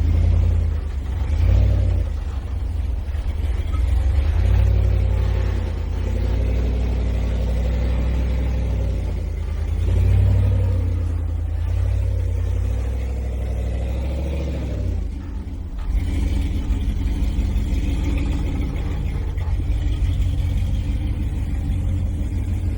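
Off-road vehicle engine revving up and down as it works its way up a rough trail. The sound shifts about sixteen seconds in.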